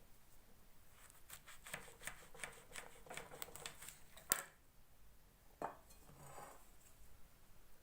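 A knife cutting an orange into quarters: faint quick clicks and scrapes of the blade through the fruit, with a sharp knock a little over four seconds in and another about a second and a half later.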